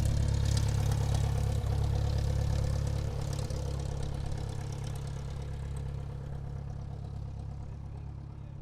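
Airplane engines running steadily at taxi power: a low, even hum with fixed tones and a hiss above it, gradually fading from about three seconds in.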